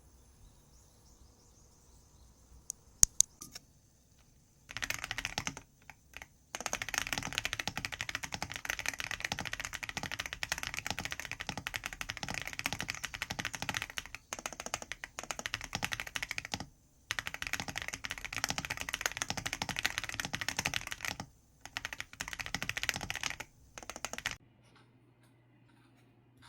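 Typing on a computer keyboard: a few separate clicks about three seconds in, then fast continuous typing in long runs broken by short pauses, stopping about 24 seconds in.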